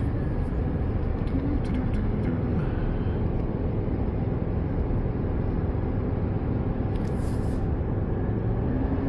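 Steady road and engine rumble inside the cab of a 2025 Chevy Silverado pickup climbing a mountain highway at speed, with a brief hiss about seven seconds in.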